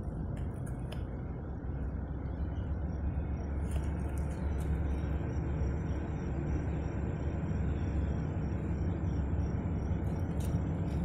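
Distant diesel locomotive of an Ohio Central garbage train, a low steady engine rumble that grows slightly louder as the train approaches. A thin high steady whine joins about five seconds in.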